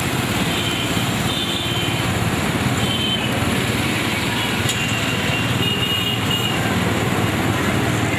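Road traffic from a procession of motorcycles, auto-rickshaws and small vans, with engines running steadily at low speed, and a few brief high-pitched beeps now and then.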